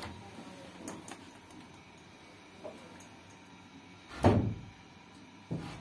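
Wooden panel door worked by its handle: light clicks about a second in, then the door bangs shut about four seconds in, and a shorter knock follows near the end.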